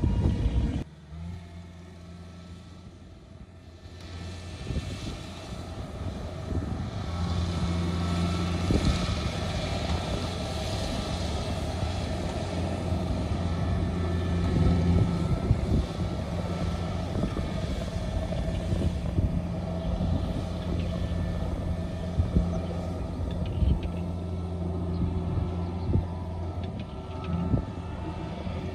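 Kubota DC70G tracked combine harvester cutting rice, its diesel engine and threshing machinery running with a steady hum. The sound drops low about a second in, then builds from about four seconds and stays loud as the machine works close by, with occasional small knocks from the machinery.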